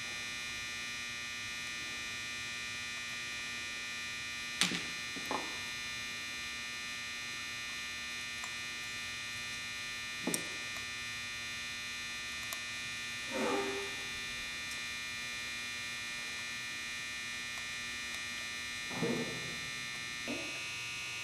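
Steady electrical hum with a high whine, broken by a few light clicks and short rustles as small screws and metal parts are fitted onto a carburetor by hand.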